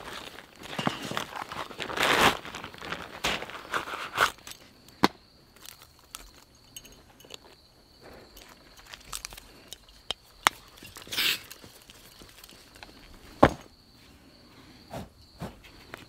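Crinkling and rustling of a thin ultralight stuff sack being opened and dug into, then scattered light clicks and knocks of camp gear being handled as a small canister stove is unfolded. A faint steady high tone runs underneath.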